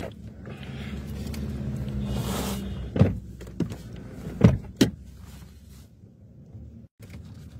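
A car's electric power window motor whirs steadily for about two and a half seconds, then stops with a thud as the glass reaches the end of its travel. A few sharp clicks and knocks follow.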